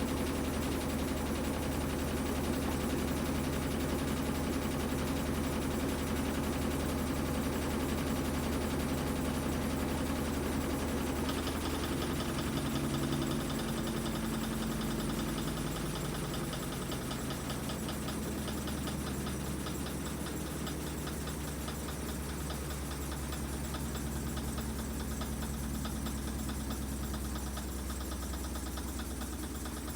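Whirlpool top-loading washing machine running its spin cycle: a steady motor and drum hum with vibration. About twelve seconds in the hum shifts and gets a little quieter, and a fast, even ticking joins it.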